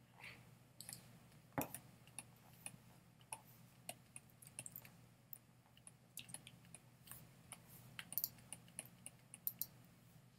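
Faint, irregular small clicks and taps of a stylus on a tablet as words are handwritten, over a faint steady low hum.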